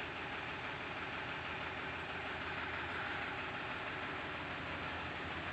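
Farm tractor's engine idling steadily.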